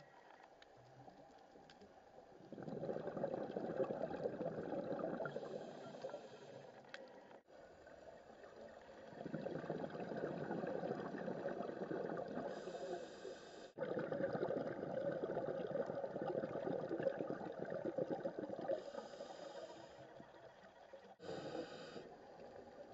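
Scuba diver's regulator breathing heard underwater: several long bursts of exhaled bubbles gurgling and crackling, with short, higher hisses of inhalation between them.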